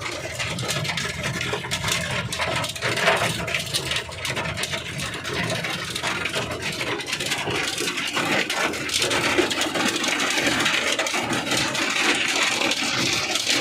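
A vehicle engine running steadily, with a dense rattling over it.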